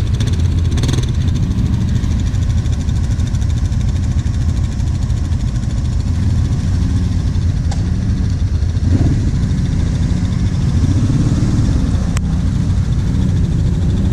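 Quad bike (ATV) engines running: a steady idle close by, with the engine note swelling up and down as riders throttle on the loose dirt climb. A sharp click sounds near the end.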